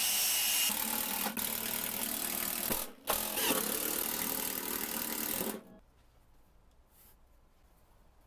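Cordless drill-driver running under load into a lathe's metal bed, stopping briefly about three seconds in and cutting off at about five and a half seconds. After it stops, a pencil scratches faintly on plywood.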